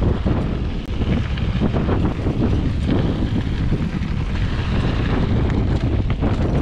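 Wind buffeting the microphone of a camera on a moving mountain bike, over the rolling noise of knobby tyres on a dirt and loose-rock trail, with frequent small rattles and knocks from the bike.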